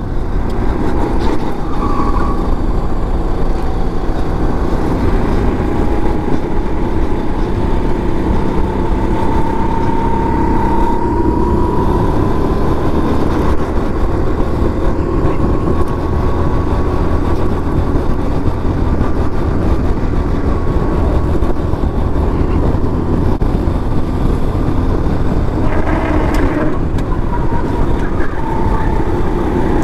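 Racing go-kart engine running hard under the driver, its pitch climbing slowly for several seconds and then holding, over a dense rush of wind and road noise on the kart.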